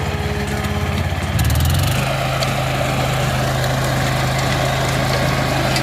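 Walk-behind cultivator's small engine running steadily; its note shifts and gets louder about a second and a half in, then holds even.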